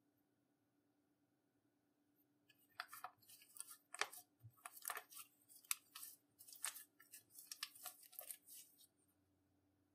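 Slime being worked by hand, giving a quick run of sticky clicks and crackles that starts about three seconds in and stops near nine seconds.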